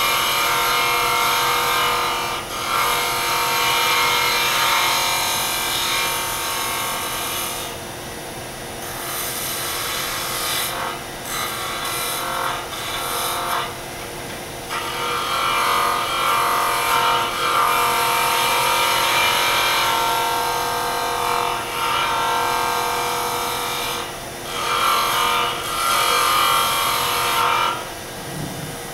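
Wood lathe running while a handheld turning tool cuts the spinning wood. The cutting noise comes in several passes and breaks off briefly between them: about eight seconds in, around the middle, and again near the end, when the tool is lifted away.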